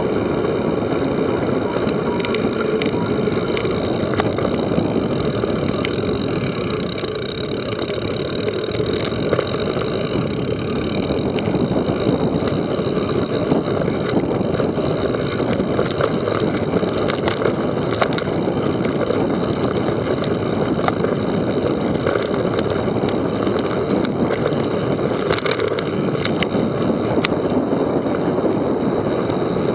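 Mountain bike riding down a rough trail: a steady rush of wind and tyre noise, broken by frequent sharp knocks and rattles from the bike.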